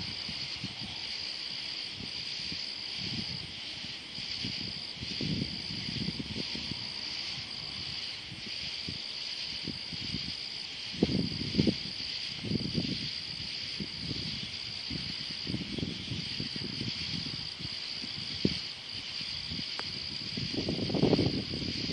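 A continuous high trill from a chorus of crickets and other night insects. Irregular low rumbles and bumps come and go underneath, loudest about eleven seconds in and again near the end.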